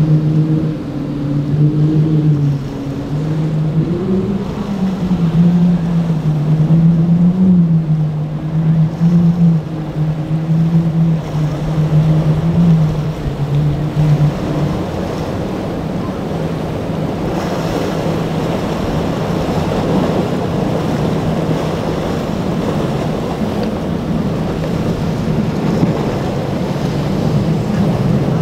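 Four Mercury Racing 400 outboard motors running at speed, a steady drone whose pitch wavers as the boat rides over chop, fading out about halfway through. After that, wind and the rush of breaking waves and spray take over, with a fainter engine hum underneath.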